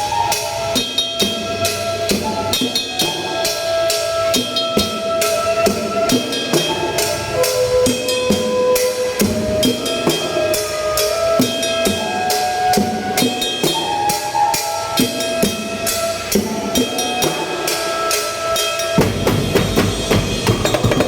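Drums playing a steady, fast rhythm of snare and bass drum strikes under a melody of held pitched notes. About nineteen seconds in the sound thickens, with more low rumble.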